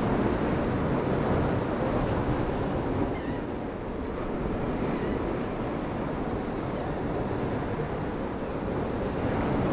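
Wind noise on the camera microphone over the steady wash of ocean surf below. It eases a little about three seconds in and builds again near the end.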